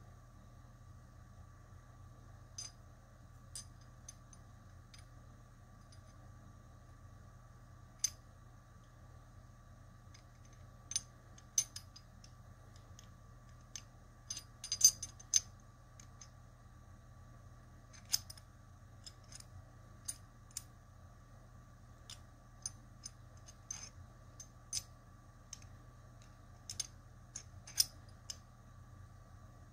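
The metal pieces of a small diamond-shaped puzzle click against each other as they are turned and fitted together by hand. The clicks are sharp, scattered and irregular, some coming in quick clusters, with the loudest ones about halfway through and near the end.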